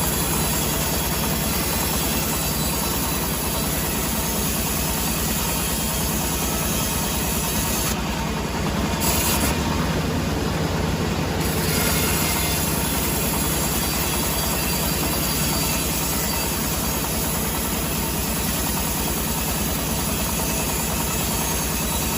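Sawmill machinery running steadily: a loud, continuous mechanical noise with a low hum underneath.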